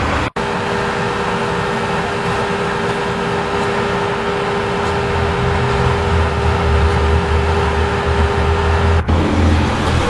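Truck-mounted road-surfacing paver running: steady engine and machinery noise with a constant hum that stops about a second before the end, and a low rumble that grows louder about halfway through.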